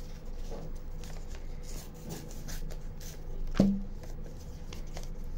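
Light handling sounds of cardboard and craft materials being fitted into a box, with one sharp knock about three and a half seconds in.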